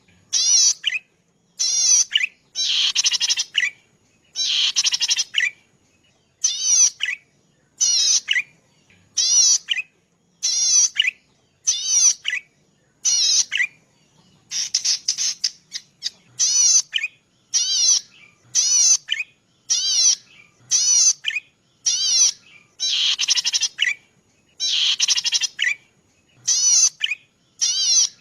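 A cici padi (prenjak padi), a small rice-field songbird, singing its song over and over: short, buzzy, fast-warbling phrases repeated about once a second with brief pauses, some phrases longer and fuller than others.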